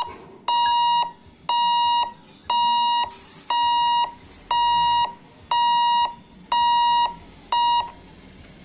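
Warning beeper of a railway level crossing's electric lifting barrier, sounding while the boom rises to open the road: a steady single-pitch beep about once a second, eight times, the last one cut short.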